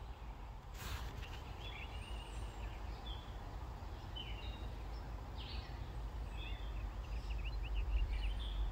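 Small birds chirping in short, repeated calls over a steady low rumble, with a single sharp click about a second in.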